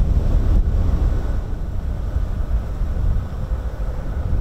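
Wind buffeting the microphone in a heavy low rumble, with a faint steady whine coming in about a second in.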